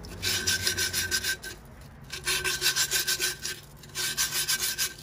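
Wet sandpaper rubbing quickly on the cut edge of a glass bottle, in three bursts of rapid rasping strokes with short pauses between them, smoothing the sharp edge.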